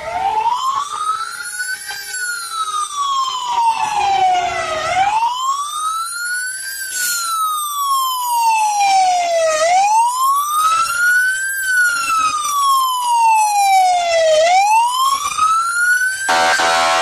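Fire truck siren wailing, its pitch sweeping slowly up and down about every five seconds. A steady horn blast starts near the end.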